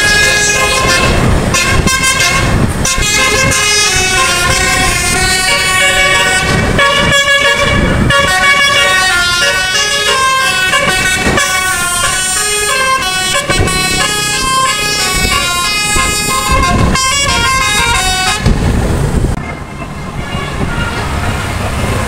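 Telolet multi-tone musical air horn on the Via Trans 'Bumblebee' bus playing a quick tune, its notes changing several times a second. About eighteen seconds in the horn stops, leaving loud engine and road noise.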